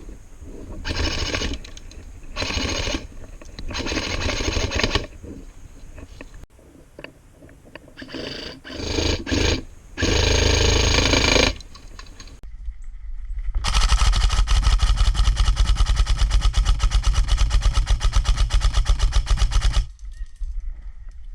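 Airsoft guns firing: several short bursts in the first half, then one long full-auto burst of rapid, evenly spaced shots lasting about six seconds that stops suddenly.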